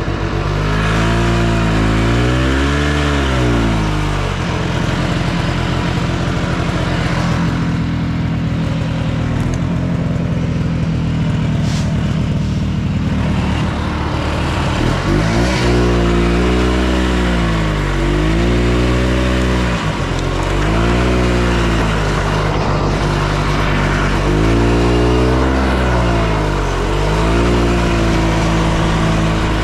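Yamaha Bravo snowmobile's two-stroke engine running under way, its pitch rising and falling repeatedly as the engine speeds up and slows. There is a steadier stretch of even running in the middle.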